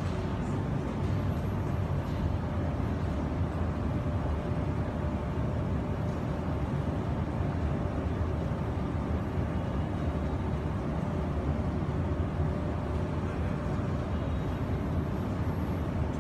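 Steady low background rumble and hum with faint steady tones, unchanging throughout, with no distinct events.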